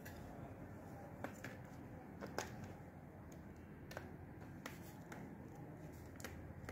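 Scattered small plastic clicks and taps from a white plastic power bank casing being handled, about eight in all, the sharpest about two and a half seconds in, over a low steady hum.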